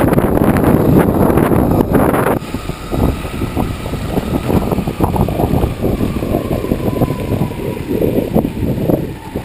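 Wind buffeting the microphone over the rumble of mountainboard wheels rolling on rough asphalt. The wind noise drops off suddenly about two and a half seconds in, leaving the crackly wheel rumble and a faint whine that slowly falls in pitch.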